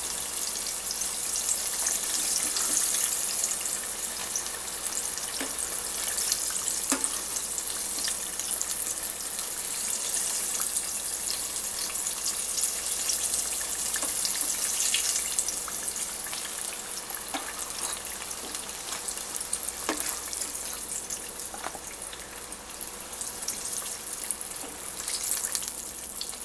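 Flour-dredged squash slices deep-frying in hot oil: a steady high sizzle with scattered pops and crackles.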